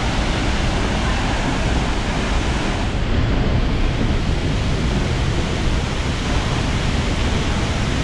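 Steady, loud rushing of a large waterfall, Vernal Fall, as an even noise with no breaks.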